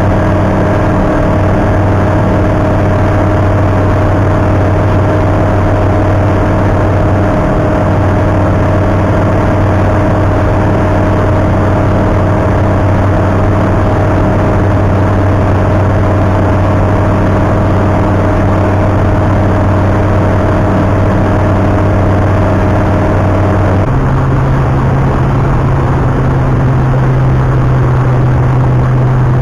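Tecnam Astore's piston engine and propeller running steadily, heard inside the cockpit as a loud, even drone. A little over three quarters of the way through, its pitch abruptly steps up.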